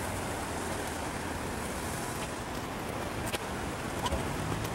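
Steady city street noise of passing traffic, with a few faint clicks.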